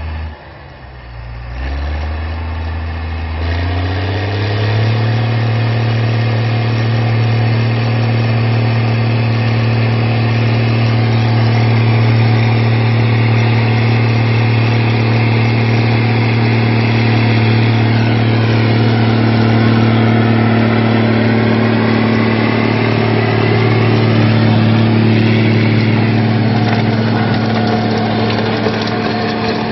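Case IH 1455 XL tractor's six-cylinder diesel engine revving up over the first few seconds, then running steadily at high revs under load while the tractor works a rotary tiller through the soil.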